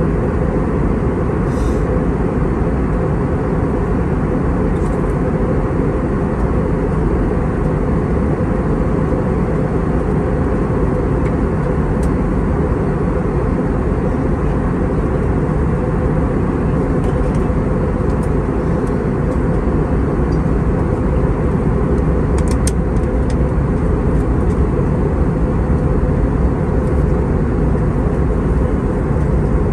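Steady roar of an Airbus A320-232's engines and airflow heard inside the passenger cabin, even in level throughout, with a few faint small clicks in the second half.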